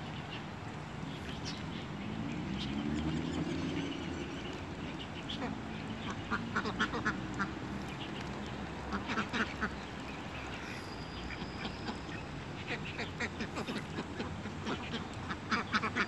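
A flock of mallards and white domestic ducks quacking while they feed at the water's edge, the quacks coming in short clusters, thickest near the end.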